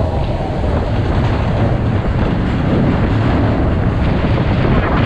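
Expedition Everest roller coaster train running along its steel track, a steady low rumble with wind rushing over the microphone.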